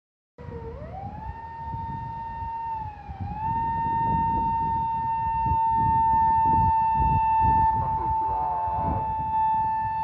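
Japanese police car siren wailing high-pitched: it rises to a long held note, dips and climbs back about three seconds in, then holds again, over a low rumble of road noise.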